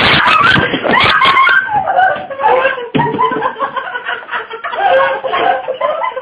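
People laughing, a run of snickering and chuckling laughter.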